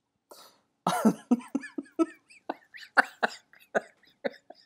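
A man laughing in a quick run of short bursts, starting about a second in.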